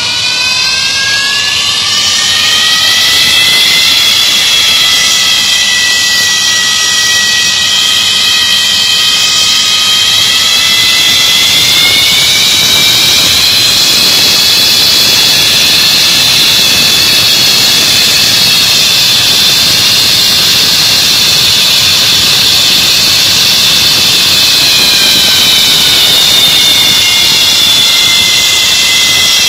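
MiG-23BN's Tumansky R-29B-300 turbojet on a ground engine test run: a loud, high whine rises over the first few seconds as the engine spools up, then holds steady, climbing a little again about twelve seconds in.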